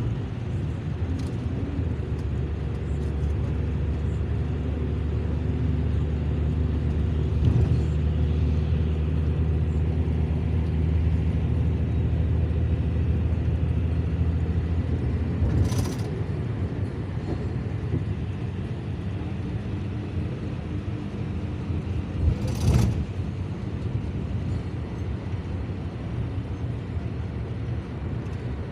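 Steady rumble of a motor vehicle travelling on a wet highway: engine hum and tyre noise, with two short, loud rushes of noise, about halfway through and again about two-thirds of the way in.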